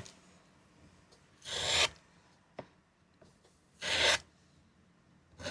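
Two short rasping strokes, each about half a second and a couple of seconds apart, with a faint click between them.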